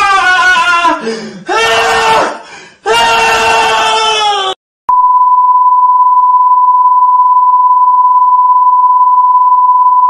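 A man singing long held notes in three short phrases, then about five seconds in a steady electronic beep, one pure unchanging tone, that holds for about five seconds and cuts off suddenly.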